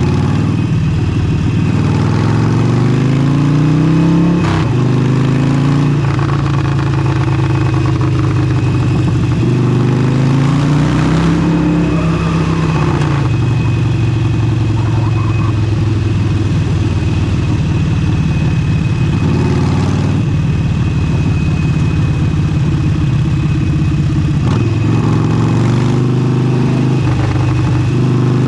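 Harley-Davidson Forty-Eight's air-cooled 1200 cc V-twin running through an aftermarket exhaust while riding: the engine pitch climbs through the first few seconds, drops at a gear change, climbs again briefly near the middle and then holds steady at cruising speed.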